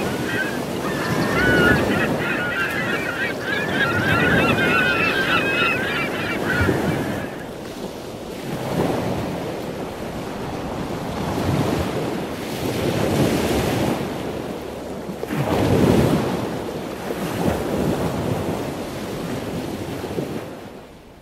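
Ocean surf breaking on a beach, the wash swelling and falling back every few seconds, with gulls calling over it for the first seven seconds or so. The surf fades out at the very end.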